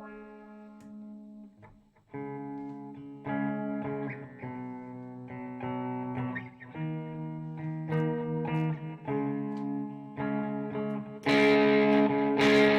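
Ibanez S470 electric guitar playing a string of held chords, each left to ring for about a second before the next. Near the end it plays a much louder, harder-strummed chord.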